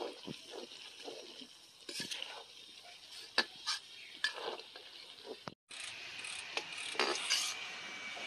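Long metal slotted spoon scraping and knocking against an aluminium kadhai while frying onions and ginger-garlic paste are stirred, a scatter of sharp clicks and clanks over a steady hiss. The sound cuts out for a moment about two-thirds through.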